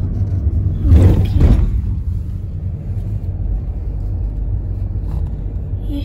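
Car driving slowly, heard from inside the cabin: a steady low rumble of road and engine noise, with a brief louder rushing sound about a second in.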